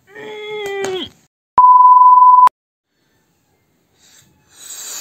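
A short wordless vocal sound whose pitch drops at the end, then one loud, steady electronic beep lasting about a second that starts and stops abruptly, like an edited-in censor beep. Near the end comes a steady hiss of breath blown into a rubber balloon.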